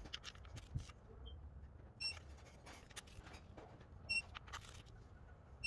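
Snap-on electronic torque wrench giving three short high beeps about two seconds apart while water-pump bolts are tightened, with faint clicks and knocks of the wrench working between them.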